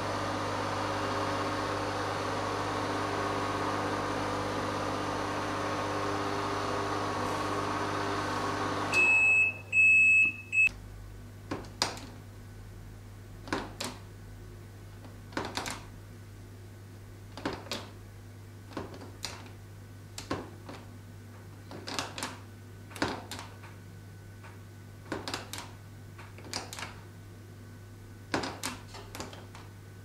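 Microwave oven running with a steady hum until its timer runs out about nine seconds in. The hum stops suddenly and the oven beeps three times, signalling the end of the heating cycle. After that come sharp clicks a second or two apart, often in pairs: the oven's keypad buttons being pressed as the display steps through power and menu settings.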